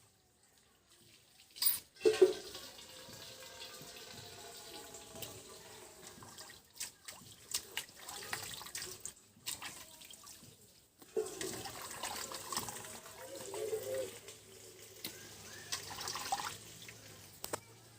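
Water splashing and pouring, in two long stretches broken by a short pause about eleven seconds in.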